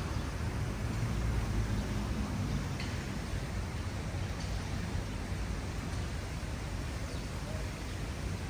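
Steady outdoor city noise: a low rumble of traffic under an even hiss.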